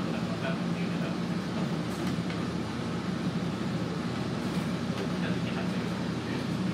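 Kominato Railway KiHa 200 diesel railcar under way, heard from inside the cab end: its engine makes a steady low drone, with a few scattered clicks.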